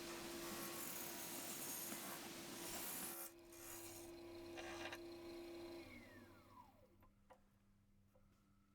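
Roughing gouge scraping along a spinning holly blank on an Axminster AT1628VS variable-speed woodturning lathe for about three seconds. The lathe keeps running with a steady hum, then its motor whine falls in pitch as it spins down, about six seconds in.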